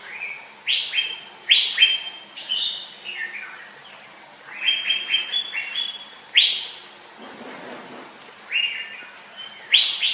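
Asian fairy-bluebird (cucak biru) singing: three bursts of short, clear whistled notes, separated by brief pauses.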